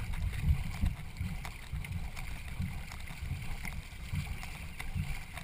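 A racing canoe under way: paddle strokes and water against the hull, heard as low, irregular thumps about once or twice a second over a faint wash of water.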